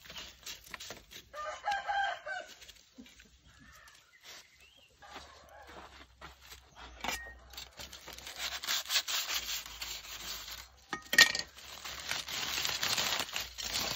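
Aluminium foil crinkling and rustling as a foil-wrapped parcel is pulled open by hand, densest in the second half with one sharp crackle. Early on, a rooster crows once, briefly.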